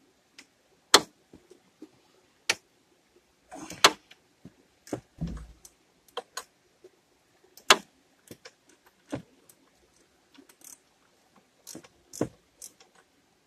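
Irregular metallic clicks and clinks of a wrench and mounting bolts as a Chevy Cavalier's alternator is unbolted by hand, with a dull thump about five seconds in.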